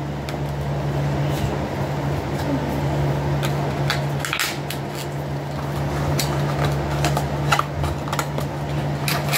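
Electric fan running with a steady hum and rush of air, with a scattering of light clicks and rustles from items being handled.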